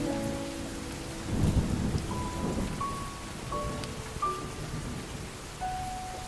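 Steady rain with a low roll of thunder about a second and a half in, under slow, sparse solo piano notes.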